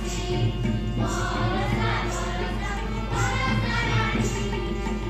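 Several voices singing together in sung phrases, over a steady low hum.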